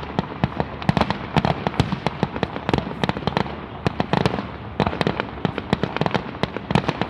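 Fireworks display in full barrage: aerial shells and low-level effects going off in quick succession, several sharp bangs a second over a continuous crackle.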